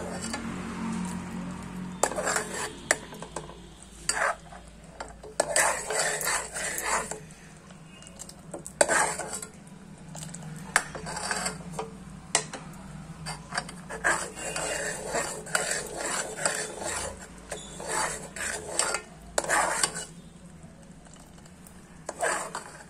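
A metal spoon stirring and scraping around a metal pot of boiling rock-sugar syrup in repeated bouts of strokes, with the syrup bubbling between them. The syrup is being cooked down to drive off its water.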